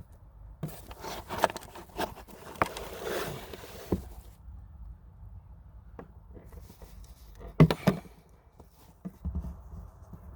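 Handling noise of a camera being moved and set in position: scraping and rustling with a few sharp knocks, the loudest a double knock near the end.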